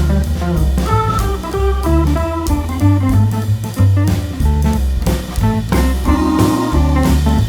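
Background music: an instrumental jazz-style tune with drums, bass and guitar or organ, on a steady beat.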